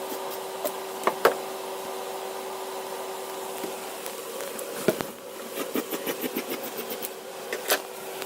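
A steady machine hum with scattered sharp knocks, and a quick run of taps at about seven a second a little past the middle.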